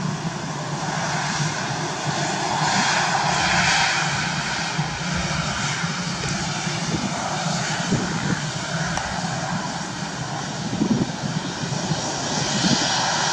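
Airbus A320 jet engines running at taxi power as the airliner rolls slowly by: a steady whine and rush that swells a little about three to four seconds in.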